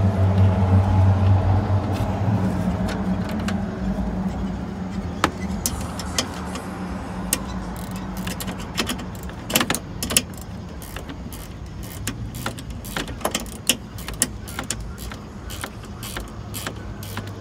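A low, steady vehicle-engine hum fades away over the first several seconds. After that come irregular small metallic clicks and taps as a mounting screw is fitted and tightened at the bottom of the headlight assembly.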